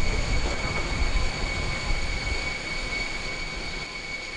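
Steady high-pitched turbine whine of a parked jet airliner, with a low rumble that fades out about halfway through.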